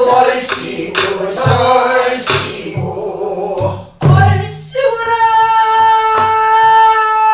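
A woman singing a Namdo folk song in the Korean traditional vocal style, keeping time on a buk barrel drum with a stick: low drum strokes and sharp clicks under the voice. Over the last couple of seconds she holds one long steady note.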